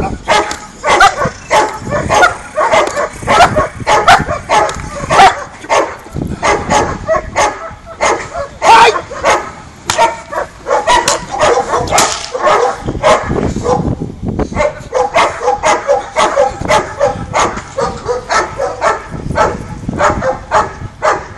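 Dog barking rapidly and without let-up, several barks a second, with a brief lull about two-thirds of the way through: barking at a helper during protection bite-work training.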